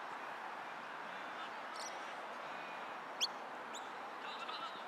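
Steady background noise with a few short, sharp, rising bird chirps; the loudest comes about three seconds in, a second follows half a second later, and a cluster of faint high calls comes near the end.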